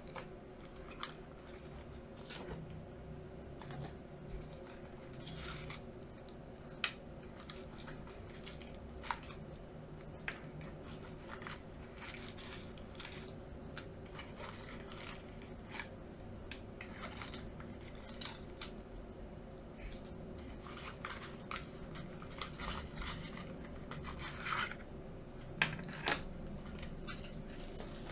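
Packaging being handled by hand: paper and tissue wrapping rustling and tearing, with scattered light clicks and taps, over a steady low hum.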